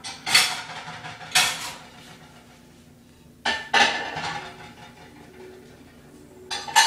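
Bone-shaped metal tag on a dog's collar clinking and jingling in a few short rattling bursts as the dog moves its head.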